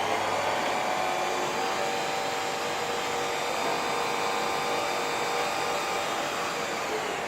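Bridgeport milling machine's motor running steadily with a continuous whine.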